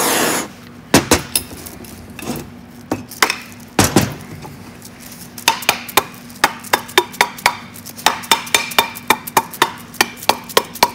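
A rubber mallet taps the heated aluminium crankcase half of a Rotax 185 engine to ease it off the crankshaft bearing. The blowtorch's hiss cuts off about half a second in, then come a few scattered knocks and, from about halfway, steady gentle taps at about three a second with a slight metallic ring.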